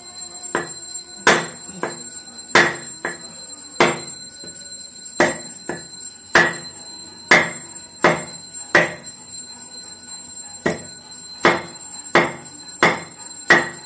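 A stone pestle hammering the back of a knife blade wedged into a turtle's shell to split it open. There are about sixteen sharp metallic clanks, roughly one a second and some in quick pairs, with a short pause about two thirds of the way through.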